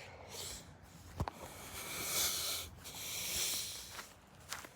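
A person breathing close to the microphone: two long, hissy breaths, with a sharp click about a second in.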